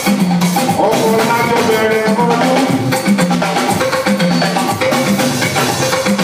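A band playing dance music, with drums and percussion over a bass line that repeats the same short figure.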